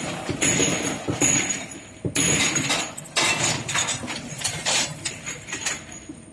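Ultrasonic bottle washing machine running: short bursts of hiss from its water and compressed-air jets come on suddenly about once a second. Over the second half, glass bottles clink and knock many times.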